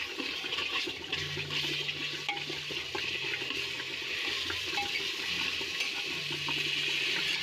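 Metal spatula stirring green peas through a thick frying masala in an aluminium pressure-cooker pot, scraping and tapping against the metal over a steady sizzle. A low hum comes in twice.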